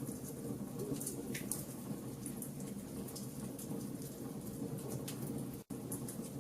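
Wood fire burning in a fireplace: a steady low rushing burn with frequent sharp crackles and pops scattered throughout. The sound cuts out for an instant near the end.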